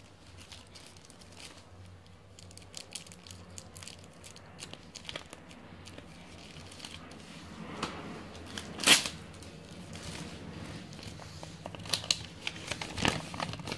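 Plastic document sleeve and paper invoice crinkling and tearing as they are opened and unfolded by hand, with one louder rustle about nine seconds in.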